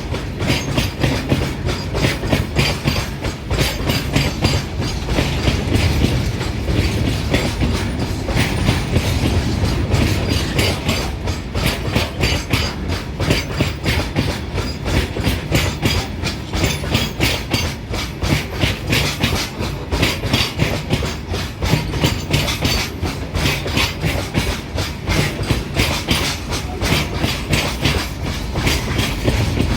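A train passing close by: a rapid, even clickety-clack of its wheels over the rail joints over a continuous rumble, with no horn.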